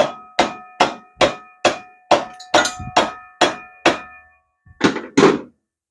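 A hammer tapping steadily on the motorcycle's steel front axle, about two and a half blows a second, each with a ringing metal tone. Near the end there is a short pause, then two last blows.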